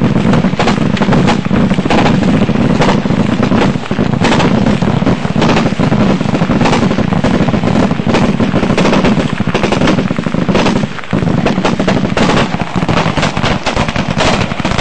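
Machine gun firing long, rapid bursts of automatic fire, the shots packed closely together, with one short pause a little over two-thirds of the way through.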